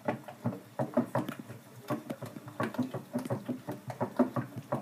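A whisk beating thin baghrir batter in a bowl: quick, uneven wet strokes and taps against the bowl, several a second.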